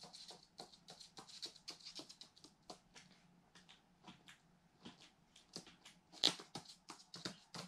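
Eurasian magpie's claws clicking on a laminate floor as it walks, then its beak pecking and picking at cat food in a dish: faint, irregular small clicks and taps, the loudest about six seconds in.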